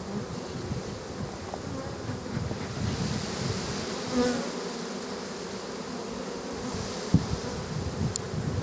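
Many honey bees buzzing around an open hive, a steady dense hum. A sharp knock sounds about seven seconds in.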